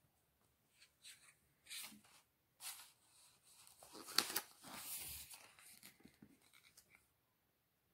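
A large-format picture book opened and its pages turned by hand: a few short, faint paper swishes, then a longer rustle of a page being turned about four seconds in, fading to small paper ticks.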